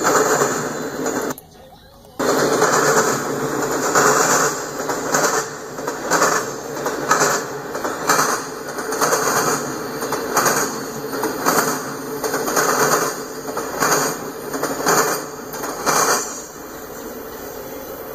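Freight car wheels on a passing double-stack intermodal train clacking rhythmically over rail joints and the diamond crossing, the clicks often in quick pairs as each truck goes over. The sound cuts out briefly about a second and a half in. The clacking stops about 16 seconds in as the last car clears, leaving a steady hiss.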